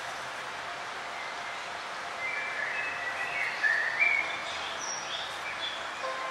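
Forest birds chirping over a steady background hiss, the short calls clustering in the second half.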